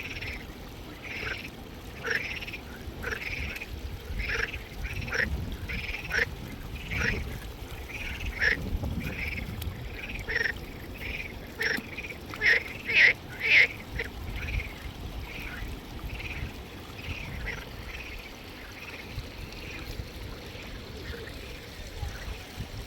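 An animal calling over and over in short calls, about one a second. The calls are loudest and densest a little past the middle, then thin out and fade.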